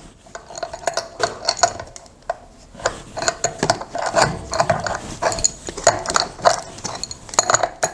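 Adjustable wrench tightening a nut on a ceiling fan's mounting bolt: a run of irregular metal clicks and scrapes as the wrench is worked round the nut.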